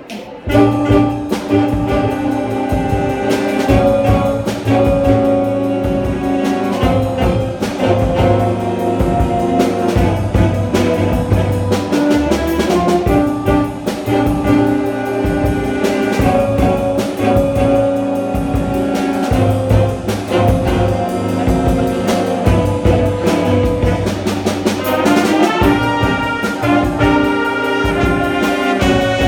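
A jazz band with a brass and saxophone section and drum kit playing a lively piece, coming in with a loud attack about half a second in.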